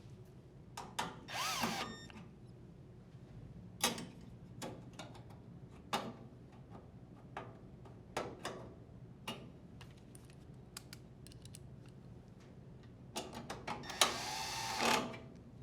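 Drill driver briefly whirring to run in screws, twice: once about a second and a half in and again near the end, its pitch sliding as it spins up and slows. Scattered clicks and knocks of metal parts and tools being handled fall between the two runs.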